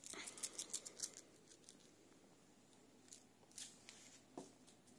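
Faint crinkling and clicking from a kitten's claws on a nylon play mat: a quick run of sharp crinkles in the first second, then a few scattered ticks.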